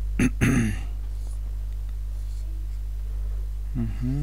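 Steady low electrical hum on the microphone line. A short burst of a man's voice comes a fraction of a second in, and near the end he hums a rising, then held 'hmm'.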